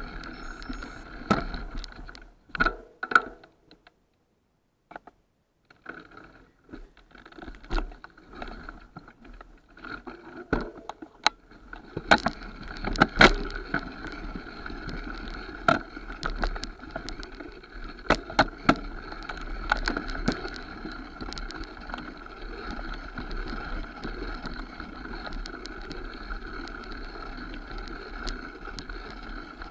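Mountain bike riding down a rough dirt forest trail: a steady rumble of tyres on the ground, with sharp knocks and rattles as it rides over roots and rocks. The sound nearly cuts out for about two seconds a few seconds in.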